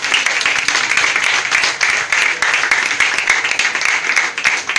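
A congregation applauding: many people clapping together, dense and steady.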